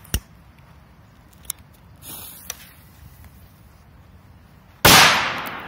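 A lighter clicks at the start; near the end a small stick firecracker goes off with one sharp bang that dies away over about a second.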